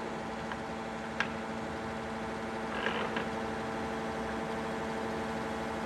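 Zbrojovka BK-5 external cylindrical grinder running with a steady hum of several tones while its work-head speed is being changed. There is a sharp click about a second in and a short rattle near three seconds from the work-head controls being handled.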